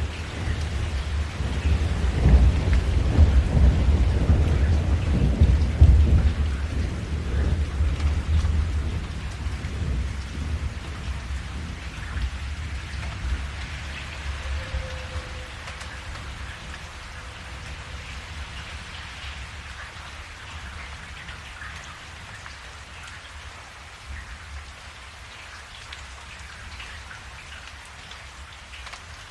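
Steady rain with a long, deep rumble of thunder through the first ten seconds or so, loudest about six seconds in, then slowly dying away and leaving the rain alone.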